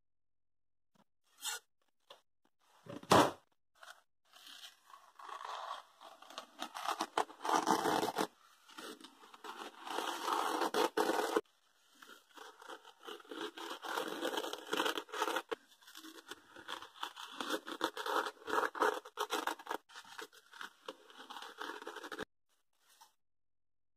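A knife blade scraped in quick, repeated strokes over a sharpening waterstone. One loud knock comes about three seconds in, and the scraping cuts off shortly before the end.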